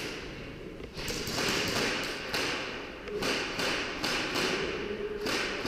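Light taps and thuds over a rustling hiss, from an airsoft player moving with his gear across a concrete floor.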